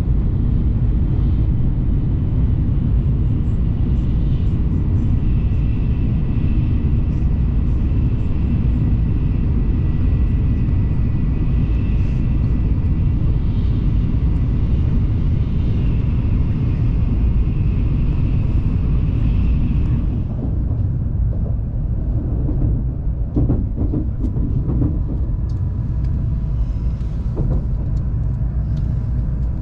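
Inside a Tokaido Shinkansen Nozomi train running at speed: a steady, loud rumble with a faint high whine. About twenty seconds in, the sound drops and turns quieter and rougher, with scattered short knocks as the train runs more slowly through station trackwork.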